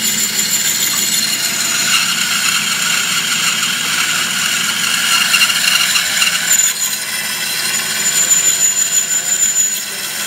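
Vertical bandsaw running and cutting through the metal tubing of a robot's frame: a steady high-pitched whine over the rasp of the blade.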